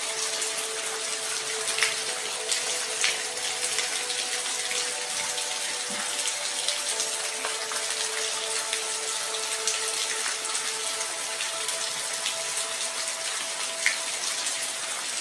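Steady rain falling, a continuous hiss with scattered sharper drop hits, over faint sustained background tones.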